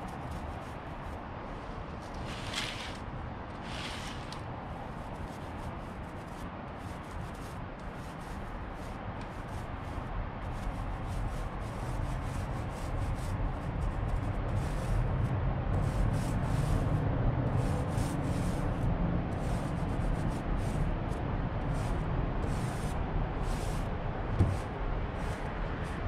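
Small foam paint roller rolled back and forth over a box Chevy Caprice's steel fender, a soft rubbing swish with each stroke. A low rumble builds in the background from about ten seconds in, and there is one sharp tap near the end.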